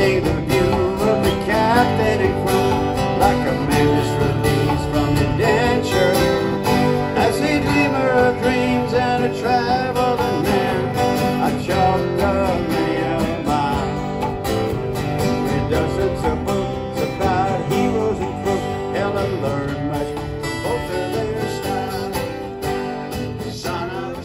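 Live acoustic country-style music: two acoustic guitars strumming with conga drums and a singing voice. It gradually gets quieter over the last several seconds.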